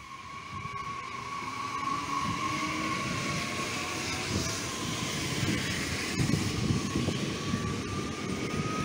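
SNCF AGC bi-mode regional multiple unit (B 81500 class) passing through the station, its wheels rumbling on the rails under a steady whine that rises slightly near the end.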